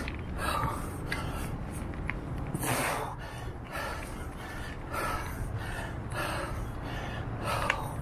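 A mountain biker breathing hard while pedalling, quick rhythmic breaths about one to two a second, over a steady low rumble of tyres rolling on a dirt trail.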